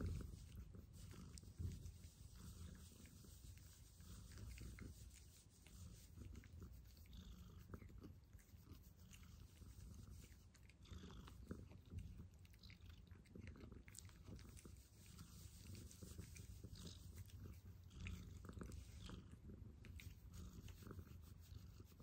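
Male calico cat purring faintly in a steady low rumble while hands rub its cheeks and head, with a soft rustle of fur.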